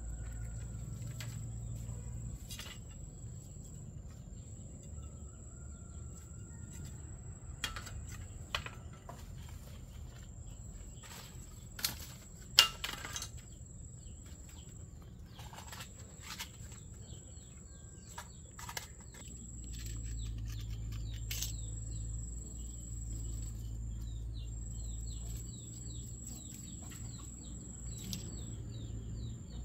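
An insect's steady high trill with short breaks, over scattered clicks and knocks of bamboo sticks and a knife being handled; the loudest is a sharp knock about halfway. Rapid short bird chirps come in over the last several seconds.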